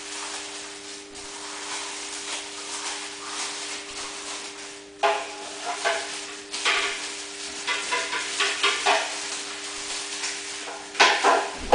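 Plastic handling noise as a cooler's siphon probe is fitted into the neck of a water bottle: rustling and scraping, with a run of clicks, knocks and short squeaks from about five seconds in. A faint steady hum lies under it.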